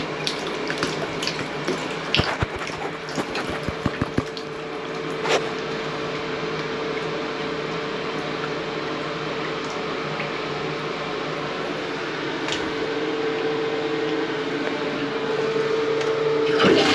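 Water running steadily from a bathtub faucet into a tub that is draining freely now that the clog is cleared. A few sharp clicks come about two to four seconds in, and a steady tone runs through the rush of water.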